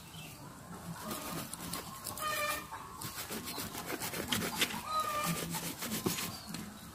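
An animal calling twice, short pitched calls about two and a half and five seconds in, over small clicks and crackles as ripe jackfruit is pulled apart by hand.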